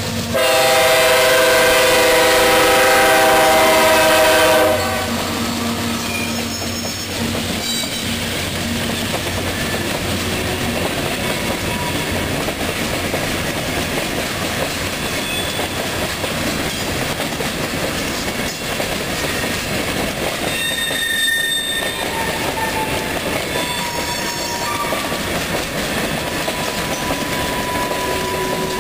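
Diesel freight locomotive horn sounding one long, loud blast for a grade crossing, cutting off after about four and a half seconds. Then the freight cars roll past with a steady rumble and clatter of wheels on rail, with brief wheel squeals now and then.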